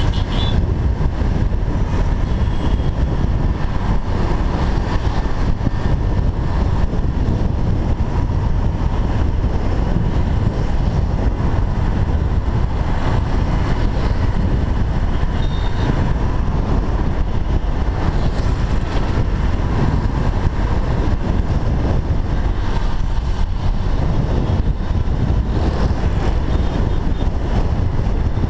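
Steady wind rush and road noise on a helmet-mounted camera riding a Honda Navi at speed, with surrounding traffic mixed in.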